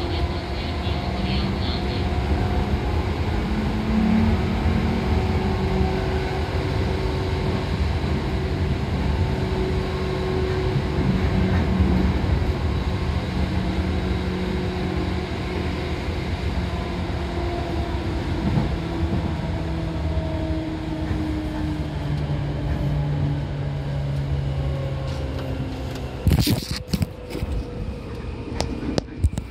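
Seibu 2000 series electric train running, heard from inside the car: a steady rumble of wheels on rail under a traction-motor hum whose tones drift up and down. Near the end comes a short cluster of sharp clatters, and the motor tones fall in pitch as the train slows.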